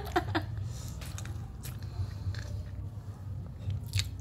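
Close-up chewing of a mouthful of rice eaten by hand, with a few soft mouth clicks, over a low steady hum.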